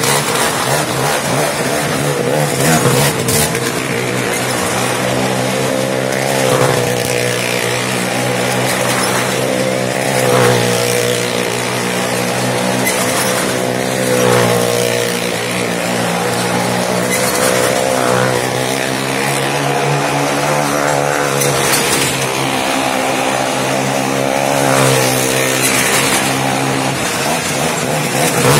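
Car engine running hard as the car laps the vertical wall of a well-of-death pit. Its note swells and fades about every three and a half seconds as it passes round.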